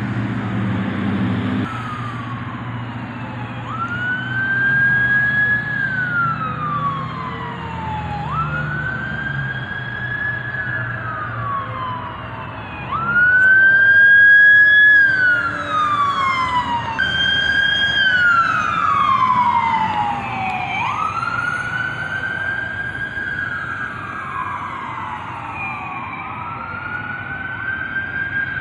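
A siren wailing, its pitch rising and falling in slow cycles of about four seconds. For a few seconds in the middle a second, out-of-step wail overlaps it, and it is loudest there.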